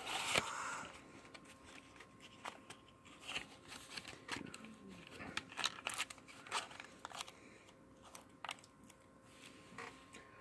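Jumbo playing cards and their cardboard box being handled: faint, scattered rustles and clicks of card and cardboard.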